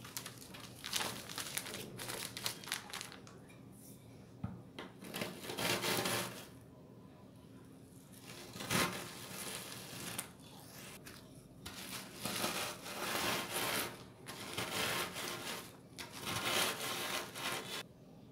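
Plastic zip-lock bag crinkling and Oreo biscuits inside it being crushed to crumbs under a wooden rolling pin, in irregular bursts, with one sharp knock about nine seconds in.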